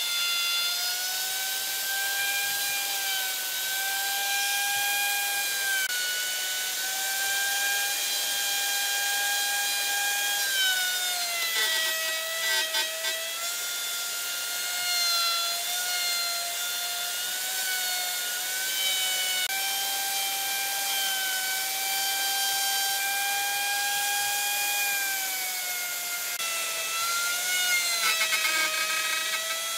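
Electric plunge router running with a high, steady whine as its bit cuts into old, weathered wood. The pitch sags briefly each time the bit takes a heavier bite, with a rougher, scratchier stretch about twelve seconds in and again near the end.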